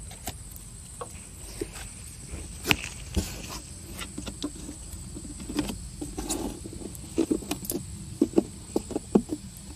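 Scattered light clicks and knocks of objects being handled, coming more often in the second half, over a steady low hum.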